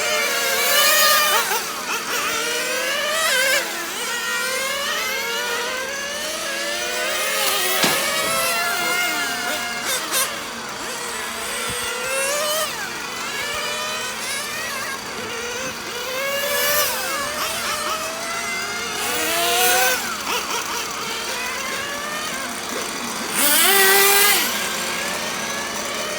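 Small nitro engines of 1/10-scale radio-controlled cars revving up and down over and over, their pitch rising and falling as they lap the track. Louder passes come about a second in, around two-thirds through and near the end.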